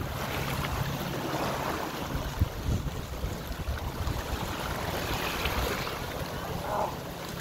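Sea water sloshing and splashing against a rocky shore, mixed with swimmers' splashing, with wind on the microphone. A low steady hum runs under it for the first two seconds or so and returns near the end.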